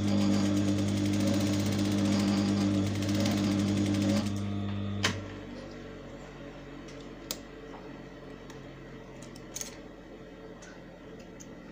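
Sewing machine running steadily as it stitches a seam through two layers of fabric, then stopping about four seconds in. A single sharp click follows about a second later, then a few faint ticks as the fabric is handled.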